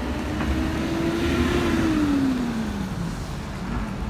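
A motor vehicle passing close by on a wet street: tyre hiss swells and fades around two seconds in while its engine note drops in pitch as it goes past, over the steady hiss of heavy rain.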